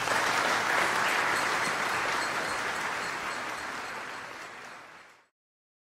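Audience applauding, swelling during the first second and then fading away until it cuts off about five seconds in.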